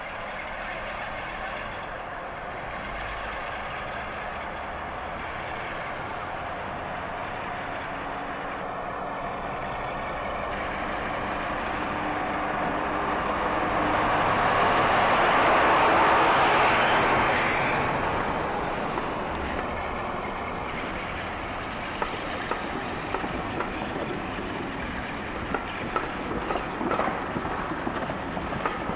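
A Class 45 'Peak' diesel locomotive with a Sulzer twelve-cylinder engine pulls away and passes close by. Its engine sound builds steadily to its loudest as the locomotive goes past, about halfway through. The coaches then roll by with rapid wheel clicks over the rail joints.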